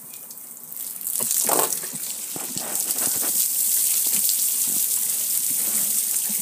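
Water gushing and splashing down over the lid and control panel of a gas grill, starting about a second in and then running steadily.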